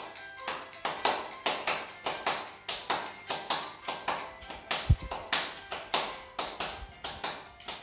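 Hand clapping in a steady rhythm, about three claps a second, over gato folk-dance music in the background. A low thump sounds about five seconds in.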